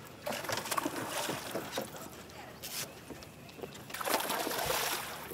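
A hooked bass thrashing and splashing at the water's surface beside the boat, loudest about four seconds in. Before that there is lighter water noise with small clicks.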